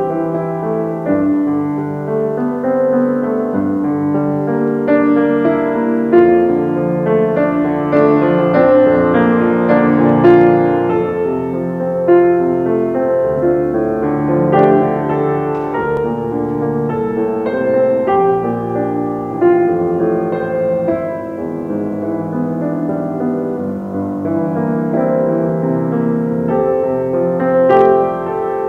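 Slow, gentle solo piano music with sustained chords and notes.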